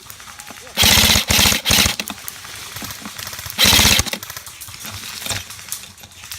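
An airsoft gun firing short bursts on full auto: a few rapid bursts about a second in, then another just before four seconds.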